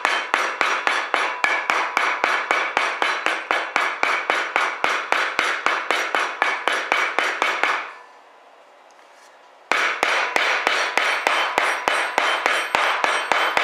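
A hammer striking a hollow wad punch in rapid, even blows, about four a second, driving it through sheet wad material on a wooden block to cut 12-gauge shotgun wads. Each blow rings sharply off the metal. The blows stop about 8 seconds in, then start again after a pause of nearly two seconds.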